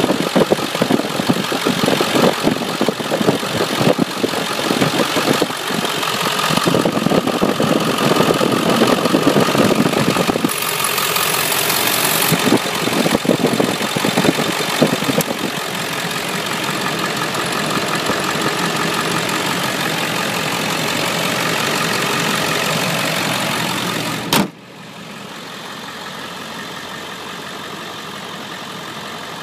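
Ford 7.3-litre Power Stroke V8 turbo diesel idling close up, with a dense rapid clatter. About 24 seconds in there is a single sharp thump, after which the engine sounds quieter and muffled.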